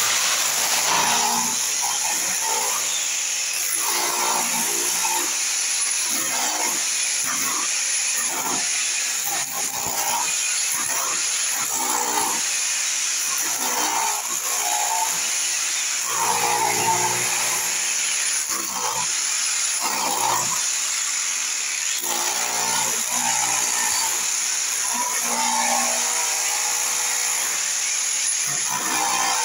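Handheld corded electric power tool running continuously as it works a concrete floor, its motor note rising and falling as the load changes.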